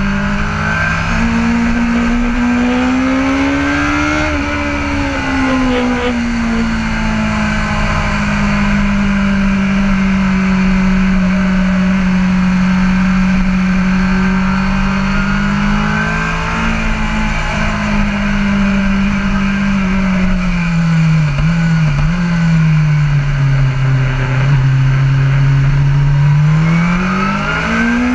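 BMW S1000RR inline-four racing motorcycle with an Akrapovic exhaust, heard from on board at race pace: the engine holds fairly steady revs through a long corner, with a brief rise about four seconds in. About twenty seconds in the revs drop in steps with a couple of quick blips, stay low for a few seconds, then climb quickly near the end as it accelerates hard.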